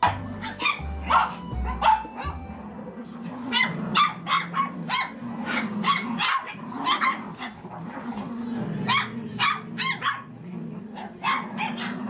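Cavalier King Charles spaniels, puppies among them, barking and yapping in many short, quick calls while they play. Background music runs under the first couple of seconds.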